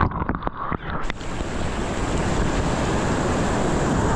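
Ocean surf breaking around a swimmer. For about the first second it is muffled and dull while the microphone is under the water, with a few splashes. Then it breaks back to the full rush of the waves, with wind on the microphone.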